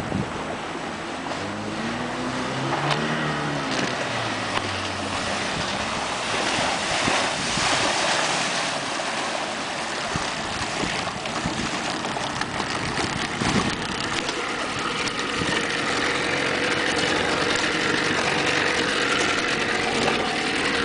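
A mini racing boat's 40 hp outboard motor running at speed, its pitch sweeping up and down in the first few seconds as it passes close by, over a constant rush of water and wind. A steadier engine tone comes up in the last few seconds.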